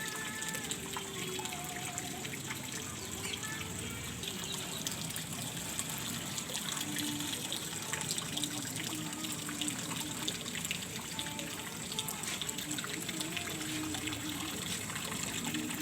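Water running and trickling steadily, with faint voices in the background.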